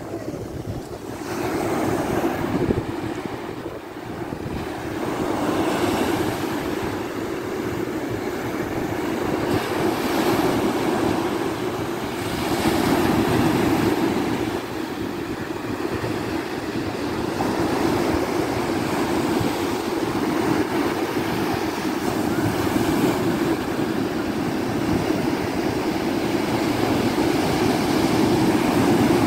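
Ocean surf breaking on the shore: a continuous wash of waves that swells and eases every few seconds, with wind on the microphone.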